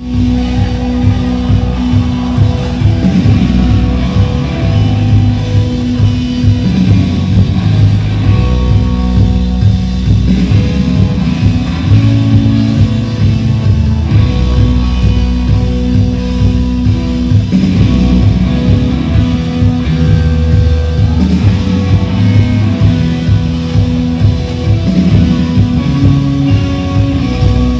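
Rock band playing live through a PA, with electric guitars and a drum kit keeping a steady beat, picked up loud by a phone in the crowd.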